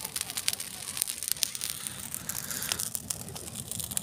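Dry brushwood fire crackling, with many sharp irregular snaps and pops from the burning twigs.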